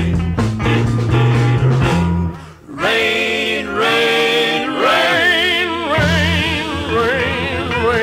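Recorded gospel song with band accompaniment. A steady bass-driven beat breaks off briefly about two and a half seconds in, then voices hold long notes with vibrato, and the bass beat returns near the end.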